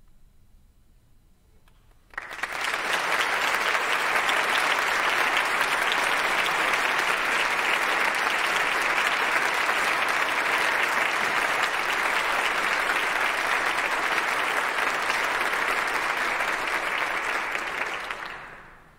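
Audience applauding: a hush for about two seconds, then applause breaks out suddenly, holds steady and dies away near the end.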